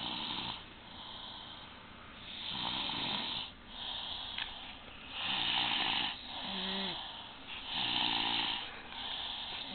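Loud snoring: rasping snores come every second or two, and some carry a wavering, whistling pitch.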